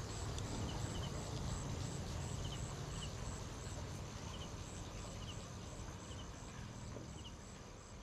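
Outdoor night ambience: insects chirping in short, evenly spaced high pulses over a steady low rumble, with small double chirps about once a second. It fades gradually.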